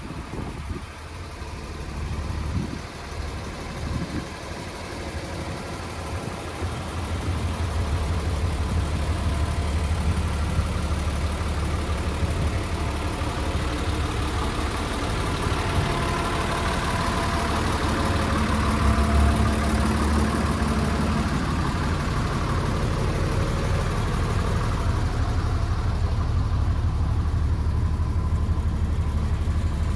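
Diesel engine of an Iveco Magirus 168M11 4x4 truck idling steadily, louder from about seven seconds in, with a few knocks in the first seconds.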